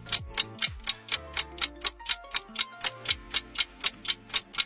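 Countdown timer sound effect: a steady clock-like ticking, about five ticks a second, over soft background music.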